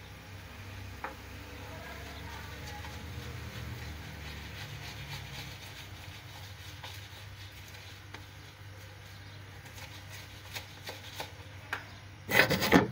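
Metal spoon stirring thick gram-flour batter in a ceramic plate: soft, irregular scrapes and clicks over a steady low hum. A loud, brief rustle comes near the end.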